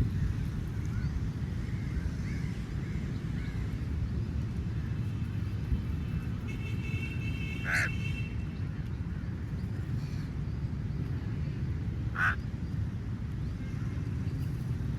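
Crow cawing: two short harsh caws, about eight and twelve seconds in, over a steady low rumble. A brief high steady tone comes just before the first caw.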